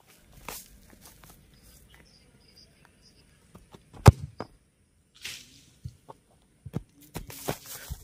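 A ball kicked hard on a grass field: one sharp, loud thump of boot on ball about four seconds in, just after a few quick run-up steps. Softer knocks and a brief rustle follow.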